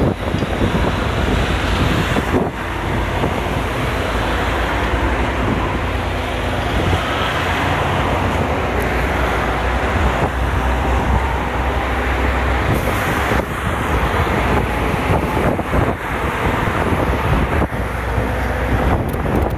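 Steady low engine and road rumble with wind noise, heard from aboard a moving vehicle as it drives along a road.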